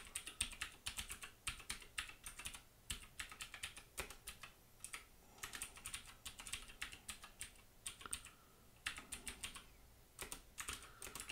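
Typing on a computer keyboard: faint, quick runs of keystrokes with brief pauses between them.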